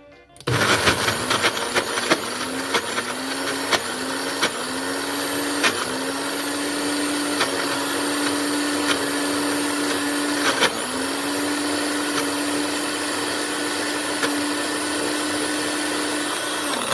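Magic Bullet blender motor running as it grinds corn kernels into thick cachapa batter. It starts about half a second in, its pitch dips briefly and recovers several times in the first six seconds, then runs steadier, with sharp clicks of corn hitting the cup throughout, and it stops just before the end.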